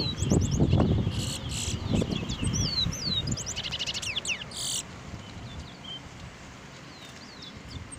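Towa-towa (chestnut-bellied seed finch) singing: short high whistled chirps and slurred notes, with a quick rattling trill about halfway through. A louder low muffled rumble runs under the first few seconds.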